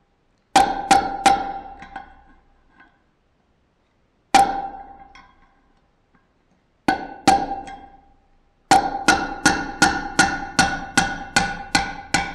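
Hammer blows on a long steel bolt used as a drift, driving a worn wheel bearing out of a motorcycle wheel hub; each metal-on-metal strike rings briefly at a steady pitch. Three blows, then a single one, then two, then a fast run of about a dozen blows, three or four a second, near the end.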